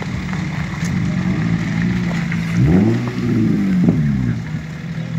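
Car engine idling, then revved twice a little past halfway, the pitch climbing and dropping back each time.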